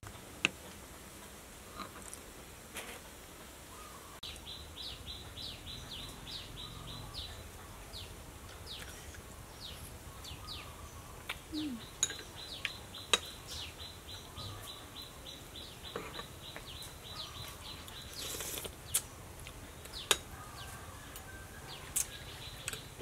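A metal spoon clinks sharply against a glass bowl now and then during eating. Behind it birds chirp in runs of quick, high, falling notes.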